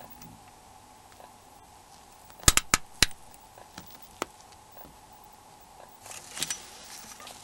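Plastic snap latches of a Nokia 6300's label cover assembly clicking into the B cover: a quick cluster of four sharp clicks about two and a half seconds in, then one more click a second later. A brief rustle of the phone being handled near the end.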